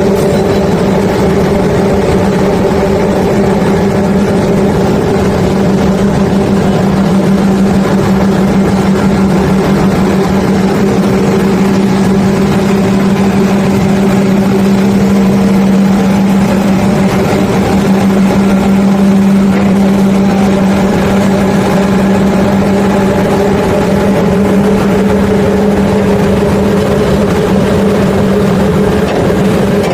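Heavy engine running steadily at one pitch, with a constant rushing noise beneath it.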